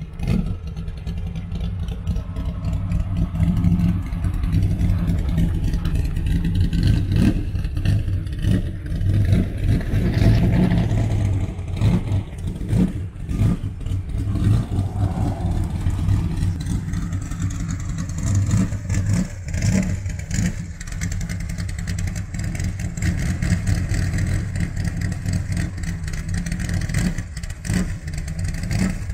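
A car engine running at idle and revved now and then.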